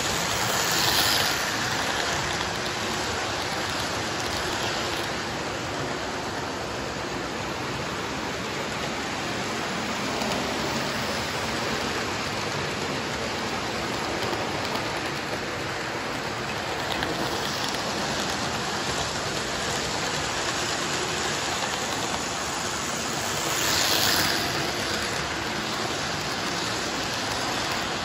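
Model trains running on a multi-track layout: a steady, hissing rattle of small wheels on rail joints and the hum of their motors. It swells about a second in and again about 24 seconds in, as trains pass close by.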